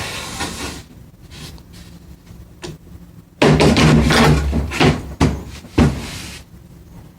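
Knocks, thuds and a scraping rumble as the heavy table saw is handled and turned over, loudest for about three seconds in the middle, with sharp knocks near the end of that stretch.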